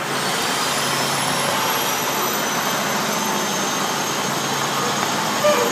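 Steady engine noise with a high whine that rises slowly in pitch over the first couple of seconds, then holds.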